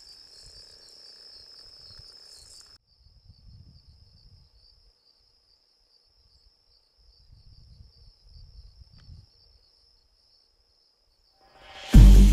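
Insects chirring in a steady, high, fast-pulsing drone, with a few soft low rumbles now and then. Music comes in loudly at the very end.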